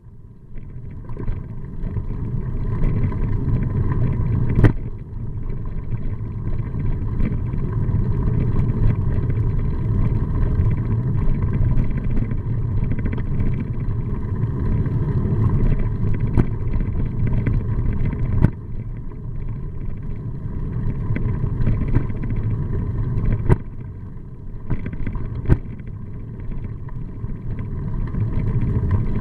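Steady low rumble of a moving vehicle, with a faint steady hum over it and a few sharp clicks.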